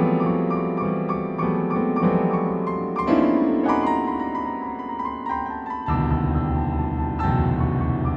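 Instrumental keyboard music in a piano-like tone, playing slow held chords. A deeper bass part comes in about six seconds in.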